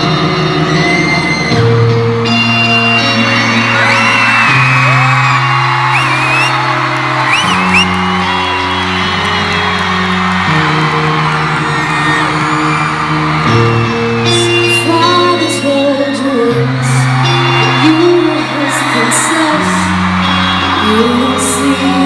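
Live rock band playing a slow intro of sustained low chords that change about every three seconds, with the crowd screaming and whooping over it.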